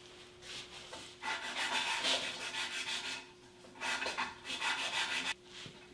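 A small band-sawn wood block rubbed back and forth by hand on a sheet of 220-grit sandpaper, in two spells of quick rasping strokes, the second starting about four seconds in. This is a light sanding to take the burrs off the edges left by the blade.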